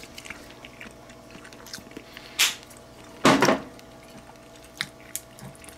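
Eating ramen with chopsticks: two short slurps, the second louder and longer, and a few small clicks of chopsticks against the bowl, over a faint steady hum.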